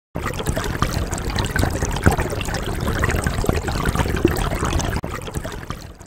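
River water trickling and splashing: a steady rush dotted with many small splashes. It drops off abruptly about five seconds in and is quieter after that.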